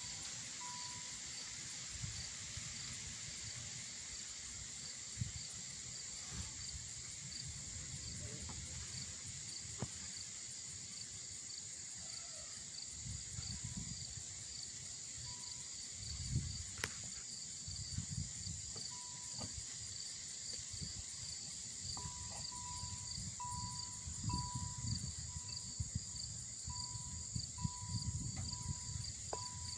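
Outdoor insect chorus of crickets or katydids: a steady high-pitched trill with a fast pulsing chirp beneath it, running on without a break. Occasional low rumbles sit under it.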